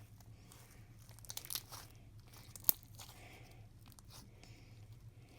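Clear-glue slime with crunchy mix-ins being kneaded and stretched by hand, giving scattered crackles and crunches, with a cluster about a second in and a single sharp click about two and a half seconds in.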